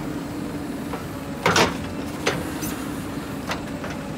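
JCB 3DX backhoe loader's diesel engine running steadily while the backhoe arm swings and works. A loud, sharp knock comes about a second and a half in, with a lighter knock just after.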